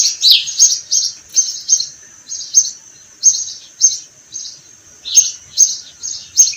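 Sparrows chirping: a steady run of short, high chirps, about two or three a second.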